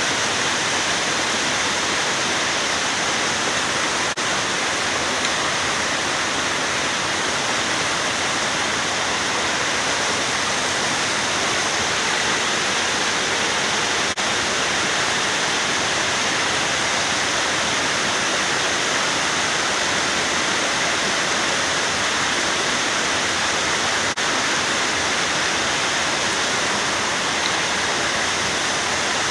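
Waterfall: a steady, even rush of falling water, with three faint clicks about ten seconds apart.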